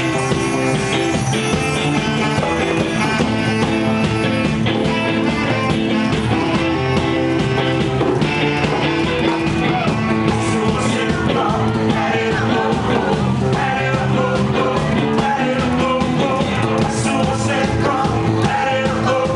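A rock band playing live: guitars over a steady beat, with some singing.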